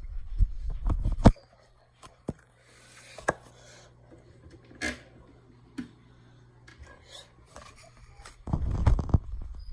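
Rumbling handling noise from a handheld phone, with a sharp click about a second in and a few light knocks, like plastic set down on a stone counter. A faint low hum runs through the quiet middle until the handling rumble returns near the end.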